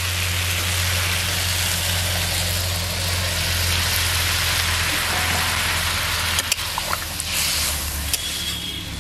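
Hot water going into a pan of raw jackfruit and potatoes cooking in masala, the curry hissing and bubbling steadily, with a few light clicks near the end.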